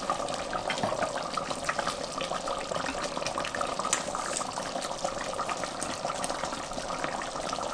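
Chicken and onion stew (yahni) simmering in a steel pot, its thickened broth bubbling steadily with many small pops.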